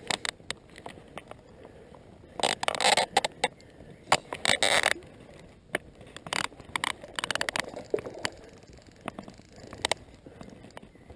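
Fly reel clicking in several short bursts of rapid clicks as its spool is turned by hand, mixed with scraping from handling the reel and line.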